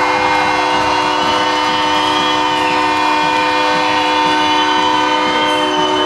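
Ice hockey arena goal horn sounding one long, steady chord, the signal that a goal has been scored.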